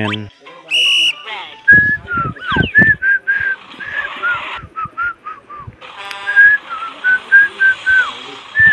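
A whistled tune of many short, clear notes, some dropping in pitch at the end, over a steady hiss. A short electronic beep sounds about a second in, and there are a few light knocks.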